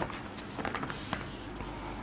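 Marker writing on a whiteboard: a run of light, short taps and scratches as terms of an equation are written.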